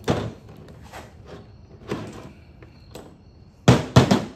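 Hand-tool clunks from working a timing-chain rivet press: a sharp metal knock at the start, a few light clicks, then two loud clunks in quick succession near the end as the long wrench is put down on the table.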